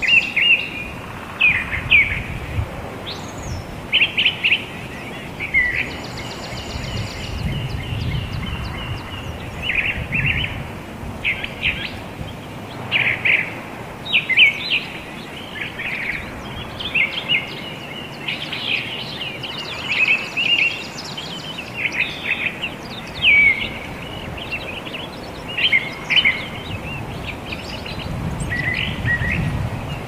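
Wild songbirds chirping: many short, sharp high calls in quick clusters, with a thin high trill heard three times, over a low uneven rumble.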